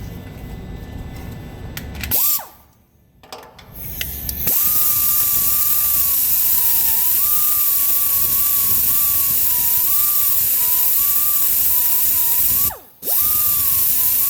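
Handheld power tool running in a short burst, then in a long steady run with a whine that wavers in pitch as it bears on the work, stopping briefly near the end and starting again: cleaning out the hole of a recessed broken exhaust stud in a cylinder head.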